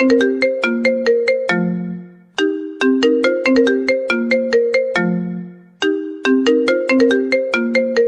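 Mobile phone ringtone tune: a quick, bright run of plucked-sounding notes that repeats about every three and a half seconds, each phrase ending on a longer low note.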